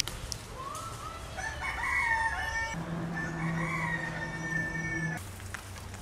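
A rooster crowing, a long call that rises and then holds, followed by a second crow, over a low steady hum; both stop abruptly a second before the end.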